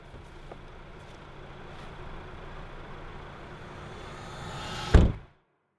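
A low steady rumble that slowly swells and brightens, ending in one loud bang about five seconds in that rings briefly and then cuts off to dead silence.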